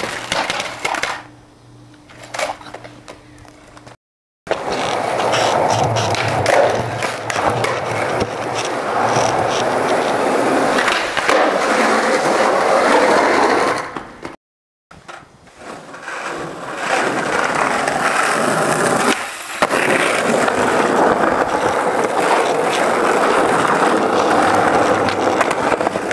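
Skateboards rolling on rough asphalt, with sharp knocks and clatter from tail pops, landings and a bail where the board hits the ground. The sound cuts out briefly twice between clips.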